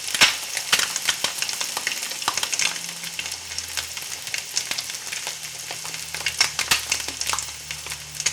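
Food frying in hot oil: a steady sizzle with frequent sharp spits and pops, over a faint low hum.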